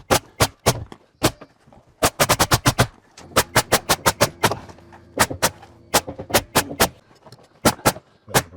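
Nails being driven into framing lumber: many sharp strikes, some singly and some in quick runs. A low steady hum sits underneath for a second or two in the middle.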